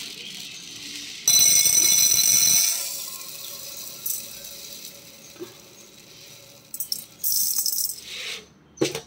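Dry whole urad dal poured into a steel tumbler: a loud rattling rush of grains striking metal about a second in, and a second, shorter pour near the end. A sharp knock just before the end.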